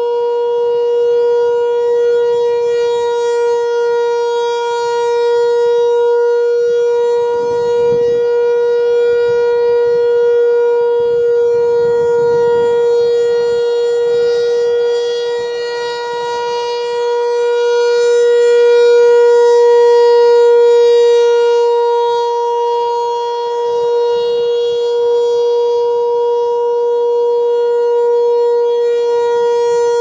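ASC T-128 outdoor warning siren sounding a steady single-pitch tone, the Full Alert signal. Its horn rotates, so the sound slowly swells and fades as it sweeps past, loudest about two-thirds of the way in.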